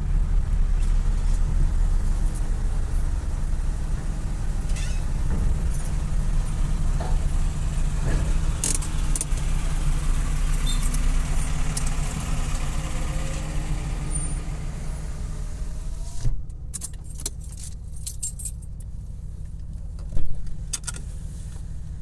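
Low, steady rumble of a Ford car's engine and road noise heard from inside the cabin as it edges forward in a queue of vehicles. The noise drops off about sixteen seconds in, with a few light clicks and one short knock near the end.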